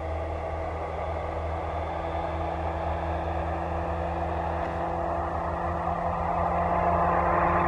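Beechcraft C90A King Air's twin PT6A turboprop engines at takeoff power during the takeoff roll: a steady propeller drone with several held tones, growing louder as the aircraft comes closer.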